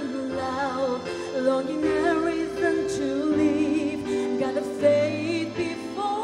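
A woman singing a song into a microphone over backing music with held chords, amplified through loudspeakers; her long notes waver with vibrato.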